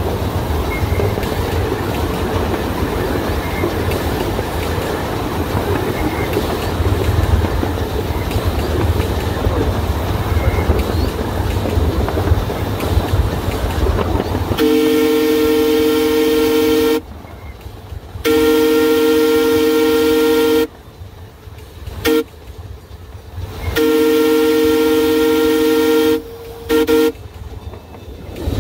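Melody Ranch Special Daylight locomotive running along the track with a steady rumble, then sounding its horn: two long blasts, a short toot, and another long blast with a brief toot near the end. This is the grade-crossing warning as the train nears a crossing.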